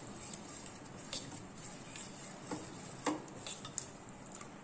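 A steel ladle stirring thin ragi batter in a stainless steel pot, with a few light clinks of the ladle against the pot's side spread through the stirring.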